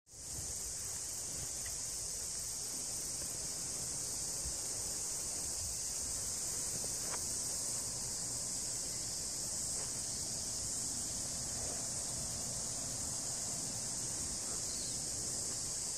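Steady high-pitched insect chorus, a continuous shrill drone without a break, with a couple of faint ticks.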